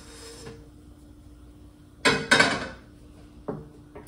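Cookware clatter: two quick, loud knocks of a pan or utensil about two seconds in, ringing briefly as they fade, then a lighter knock a second or so later. A low steady hum runs underneath.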